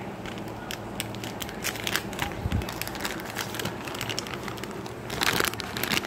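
Plastic Pedigree Rodeo dog-treat pouch crinkling and crackling as it is handled to take a treat out, in irregular clicks with a denser, louder burst about five seconds in.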